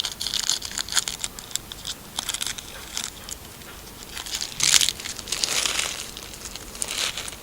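A trading-card pack's wrapper being torn open and crinkled by hand: a run of crackles and rustles, with a few louder crinkles about halfway through.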